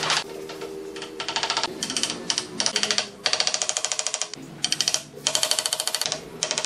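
Quick runs of light knocks as the wooden handle of a trowel taps ceramic edge tiles to bed them into fresh mortar, coming in three or four spells of about a second each, over quiet background music.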